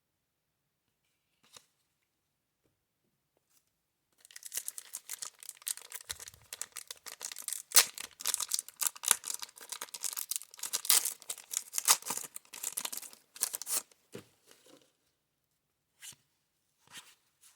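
A wax pack wrapper of baseball cards being torn open and crinkled: about ten seconds of dense crackly ripping that starts about four seconds in, followed by a few soft ticks of card handling near the end.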